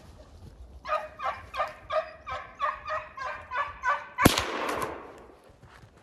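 English Springer Spaniel barking in a rapid run, about four barks a second, then a single loud gunshot about four seconds in, ringing out briefly. The shot is fired at a wild boar.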